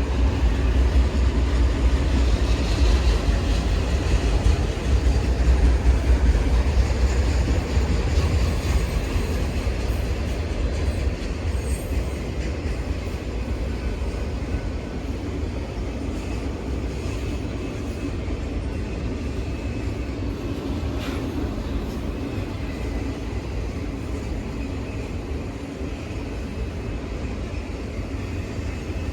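Long freight train of autorack cars rolling past, a continuous low rumble of wheels on rail. It is loudest over the first several seconds and then eases slightly.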